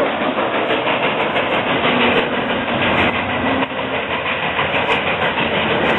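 Passenger train passing close at speed: a loud, steady rush of wheels on the rails as the tender of the Santa Fe 3751 steam locomotive and the trailing diesel locomotive go by.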